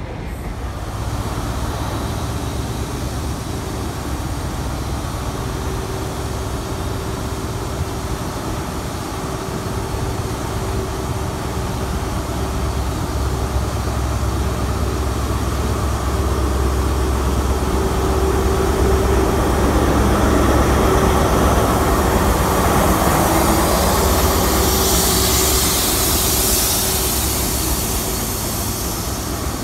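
InterCity 125 (Class 43 HST) diesel power car running with a steady low drone and a held engine note, growing louder about halfway through as the train works up to pull away. A hiss rises over it near the end.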